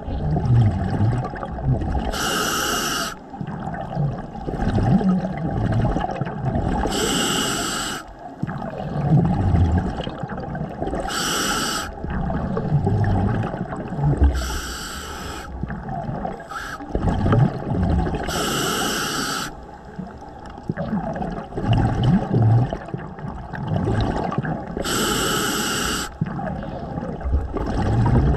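Scuba diver breathing underwater through a regulator: a loud burst of exhaust bubbles about every three to six seconds, six times, with low rumbling between the breaths.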